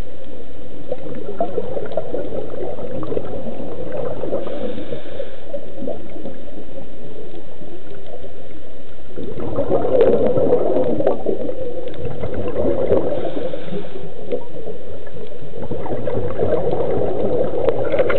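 Underwater gurgling and bubbling heard through the camera housing, typical of a scuba diver's regulator breathing. Two brief hisses come about nine seconds apart, and louder bubbling runs from about halfway through and again near the end.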